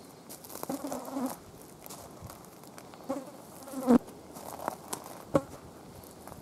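A flying insect buzzing close to the microphone, swelling past about a second in and again around four seconds in, with a couple of sharp ticks.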